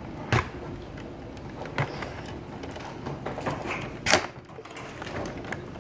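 A few sharp knocks and clicks of things being handled, the loudest about four seconds in.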